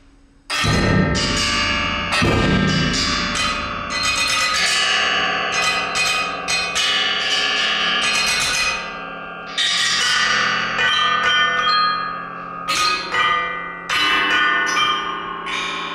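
Contemporary chamber music for piano and percussion: a sudden loud entry about half a second in, then a run of ringing, bell-like strikes that overlap and sustain, with fresh loud attacks later on.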